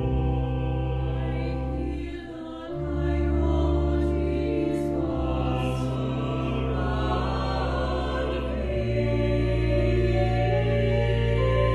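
A mixed SATB choir singing sustained chords in slow, held phrases, the line 'I hear the coyotes call surround me', over an organ holding deep, steady bass notes that shift twice.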